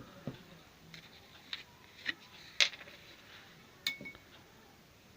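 A spoon clinking against a glass as a spoonful of honey goes in: about half a dozen light clinks spread out, the loudest about two and a half seconds in, and one near four seconds with a short ring.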